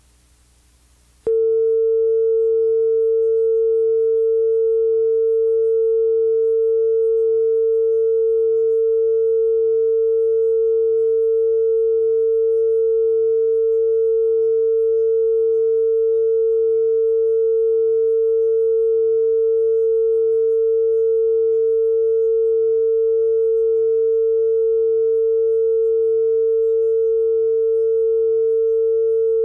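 Steady test tone that accompanies television colour bars: one unchanging pitch with faint overtones, switching on abruptly about a second in after a moment of faint tape hiss.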